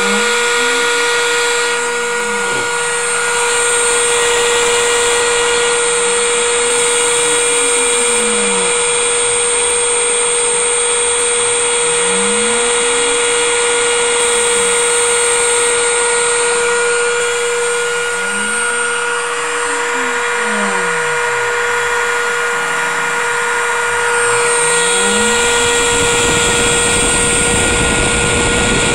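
Home-built CNC machine running a test: a constant motor whine over which the stepper-driven axes move five times, each move rising in pitch and falling back as the axis speeds up and slows down. A rougher hiss grows near the end.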